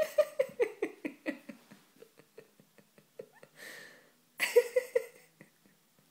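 Siberian husky vocalizing in annoyance: a quick run of short yips and grumbles, about five a second, each dropping in pitch and fading out. A breathy puff follows, then a loud burst of three or four more calls about four seconds in.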